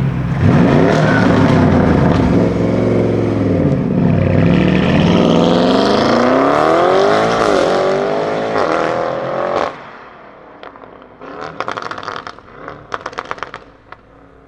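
Audi RS7 Sportback C8's twin-turbo V8, stage-2 tuned with catless downpipes, accelerating hard: its pitch climbs and drops back several times, as through upshifts. The sound cuts off about two-thirds of the way in, followed by quieter clusters of exhaust pops and crackles.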